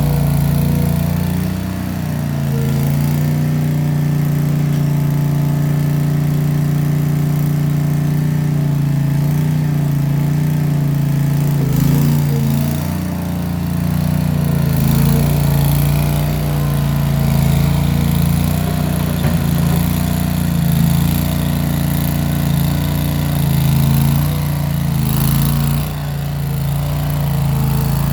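Case 1816 skid steer's engine running steadily under working load through small round mufflers, its level swelling and easing a little every few seconds as the machine works.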